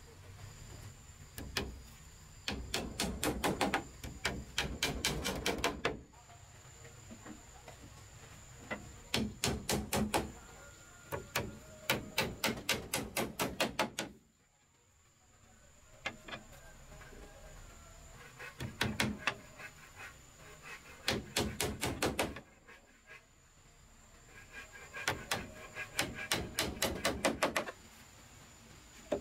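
Hammer nailing wooden slats to a wooden frame, in quick runs of sharp blows about five a second, with short pauses between runs.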